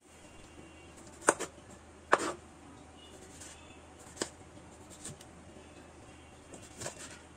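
A kitchen knife slicing a tomato and knocking on a wooden cutting board: a few sharp knocks, the two loudest in the first couple of seconds, the rest lighter.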